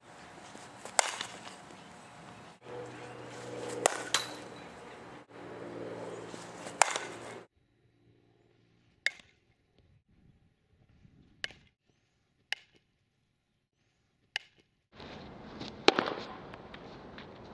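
Softball bat striking a series of softballs in batting practice: about eight sharp cracks a few seconds apart, the middle ones fainter with near silence between them.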